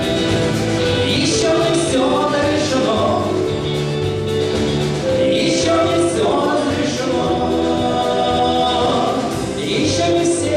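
Music with several voices singing together, held sung notes over a steady accompaniment.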